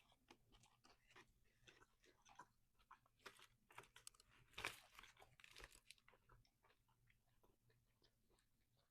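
Faint, close chewing and crunching of a fried chicken snack wrap: a run of quick crisp crunches, loudest about halfway through.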